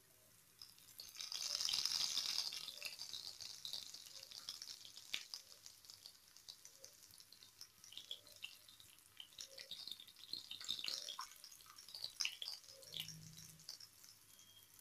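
Raw banana slices shallow-frying in oil on a cast-iron dosa tawa, sizzling and crackling with scattered pops. The hiss swells to its loudest about a second and a half in, and a perforated steel spatula clicks lightly against the pan as the slices are turned.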